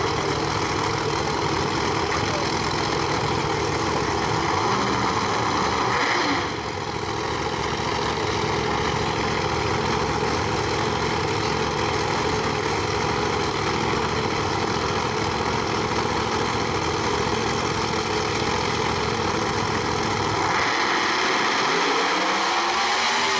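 Turbocharged no-prep drag cars' engines idling loudly and steadily at the starting line. Near the end one engine revs up with a rising pitch, ahead of the launch.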